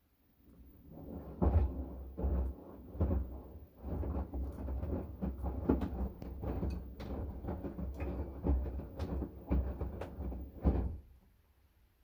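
LG 9 kg direct-drive front-loading washing machine in a wash cycle: wet laundry and water in the drum sloshing and dropping with a run of irregular dull thuds. The tumbling starts about half a second in and stops about a second before the end.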